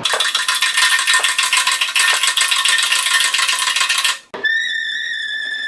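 A fast, dense rattling clatter for about four seconds cuts off abruptly. A steady high-pitched whine then starts and holds, in keeping with an electric drill running to drill out the marked bolt holes in the boat's transom.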